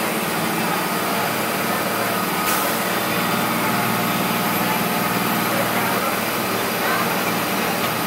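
Cummins 5.9 inline-six turbodiesel of a Blue Bird school bus running steadily while the bus drives, heard from the driver's seat inside the cabin, with road noise. A single short click comes about two and a half seconds in.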